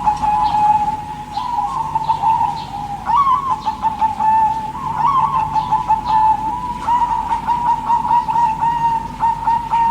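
Zebra dove (perkutut) cooing: a continuous run of warbling, trilled coos with short rising flourishes every couple of seconds, and faint high chirps of small birds behind it.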